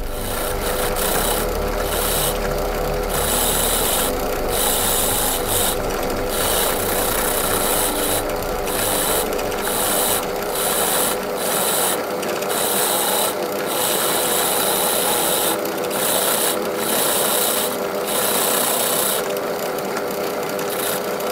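Brass wire wheel brush spinning in a drill press, scrubbing a small threaded steel screw from an old hand plane to clean off rust and grime. A harsh scratchy hiss over the steady hum of the drill press motor. The hiss keeps dipping for a moment and coming back as the screw is pulled off the wheel and pressed on again.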